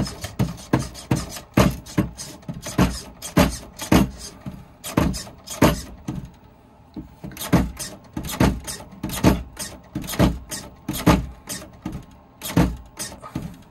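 Red Cat lowrider RC car's servo-driven hydraulic-style suspension being worked from the radio, the chassis and wheels knocking on the tabletop in sharp, irregular strikes, sometimes several in quick succession, as the car hops and tilts.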